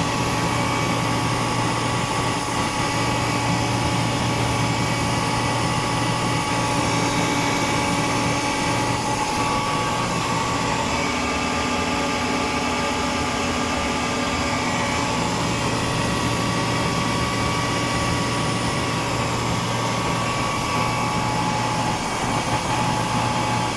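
Rotary screw air compressor running steadily, a constant mechanical drone with a low hum and higher whining tones. The low hum drops back for a couple of seconds about halfway through, then picks up again.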